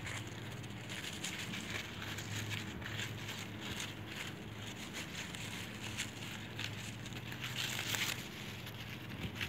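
Crepe paper rustling and crinkling irregularly as hands wrap and press it around a small plastic bottle, a little louder about eight seconds in, over a low steady hum.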